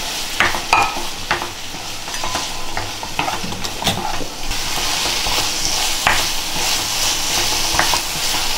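Green peas being stirred into a thick tomato-onion masala frying in a kadai: the spatula scrapes and taps against the pan over a steady sizzle, and the sizzle grows louder about halfway through.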